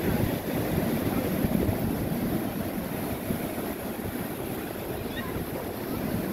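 Steady wash of small waves breaking on the beach, with wind rumbling on the microphone.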